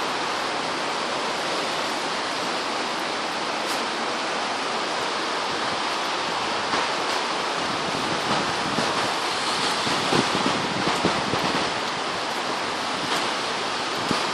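Steady rain falling, an even hiss with scattered louder taps and splashes around the middle.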